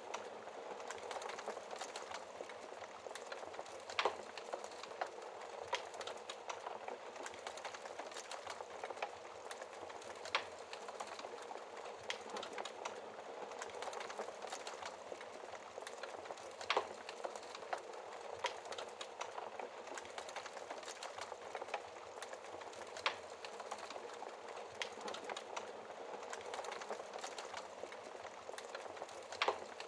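Wood fire burning in a fireplace, with a steady soft crackle and hiss and five sharper pops about six seconds apart.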